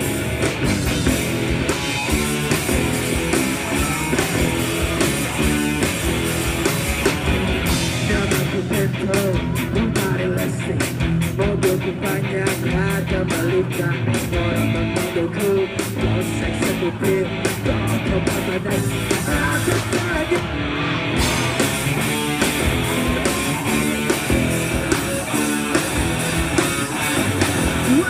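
Rock music with electric guitars, drums and singing, with a run of evenly spaced cymbal strokes, about three a second, through the middle.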